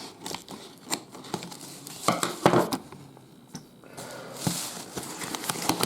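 Packaging being handled and pulled off a boxed weather radio: irregular rustling of plastic and cardboard with scattered small clicks and knocks, a cluster of sharper ones around the middle.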